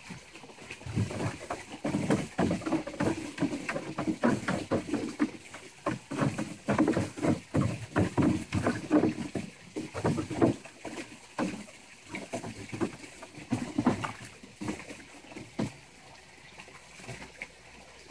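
Water splashing and sloshing in a plastic kiddie pool as a cairn terrier wades and paws around, feeling for his bone under the water. The splashes come in irregular clusters and die down near the end.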